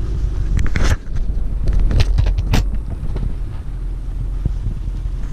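Ford Super Duty's 6.4 L Power Stroke V8 diesel running in the cab as a steady low rumble while the truck crawls along a rutted mud trail. A few sharp knocks and clatters come through, about a second in and twice more a second or so later.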